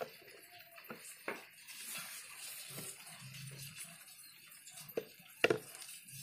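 Hands sifting damp soil and handling mole crickets in plastic basins and buckets: soft rustling with scattered knocks, the loudest about five and a half seconds in.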